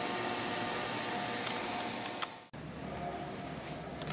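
Ultrasonic parts cleaner running, its water and dish-soap bath cavitating around nitro engine parts: a steady high hiss and buzz. It cuts off suddenly about two and a half seconds in, leaving quieter room tone with a few light clicks near the end.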